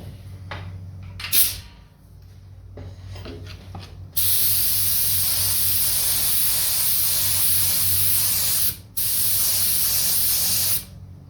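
Paint being sprayed over a dent repair, a steady hiss. One pass lasts about four and a half seconds, then after a short break a second pass lasts about two seconds. A brief sharp sound comes about a second in.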